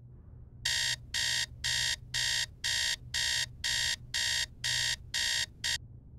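Bedside alarm clock beeping, a harsh buzzing beep about twice a second, ten beeps in all; the last one is cut short as the alarm is switched off.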